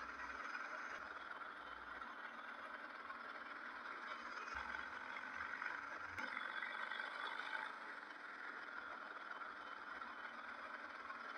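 Steady rushing noise of a moving motorcycle on a paved road, mostly wind and tyre noise, with no distinct engine note.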